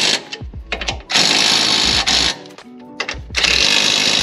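Cordless impact wrench hammering strut-tower mounting nuts tight in short bursts of about a second: one ends just at the start, a second runs from about one second in, and a third starts near the end.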